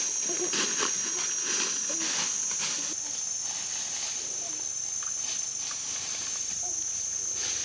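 A steady high-pitched insect drone, with footsteps crunching through dry leaf litter over the first few seconds.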